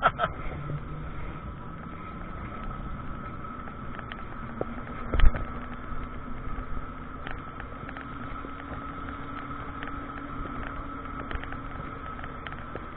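Carver electric tilting three-wheeler driving at speed, heard from inside its cabin: steady road and wind noise with a steady whine. One loud thump about five seconds in.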